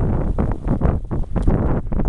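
Wind buffeting the microphone with a heavy rumble, over dogs splashing and paddling through shallow seawater.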